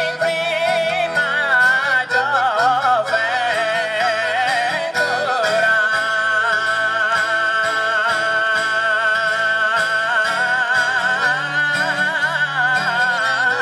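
A male singer performing Sardinian canto a chitarra in the "Re" mode, a high, ornamented melismatic line with strong vibrato, over guitar and accordion accompaniment. About six seconds in, the voice settles into long held notes.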